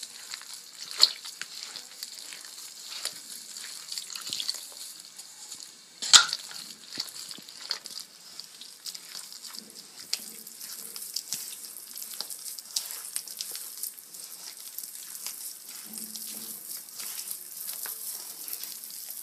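Crumbly biscuit dough being mixed in a bowl as milk is worked in: a steady crackly rustle of many small ticks, with a sharp knock about a second in and a louder one about six seconds in.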